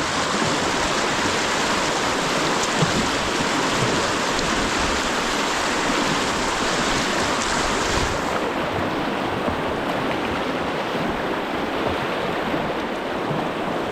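Fast river current rushing steadily through a rapid. The highest part of the hiss falls away about eight seconds in.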